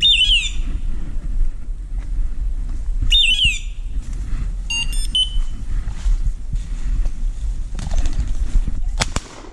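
A pointing dog's beeper collar sounds its point alert: a descending hawk-like screech twice, about three seconds apart, then a short electronic beep, over the steady rustle and wind of hunters moving through cover. A few sharp clicks or flaps come near the end.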